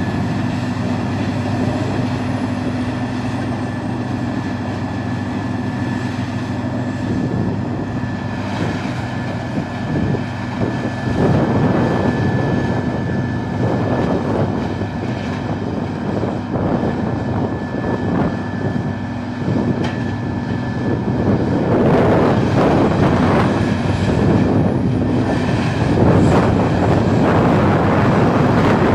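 Peterson 4300B horizontal drum wood chipper running, with a steady engine drone and a steady high whine. Dense irregular cracking as wood is chipped in the drum grows louder in the last several seconds.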